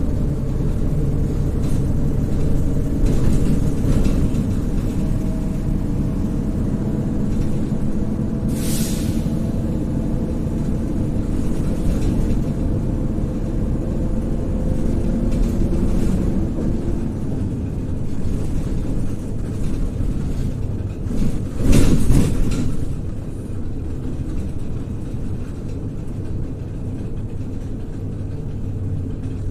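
Inside a MAZ-103 city bus under way: steady engine and road rumble, the engine note drifting up and down with speed. There is a short hiss about nine seconds in and a brief louder burst of noise about twenty-two seconds in.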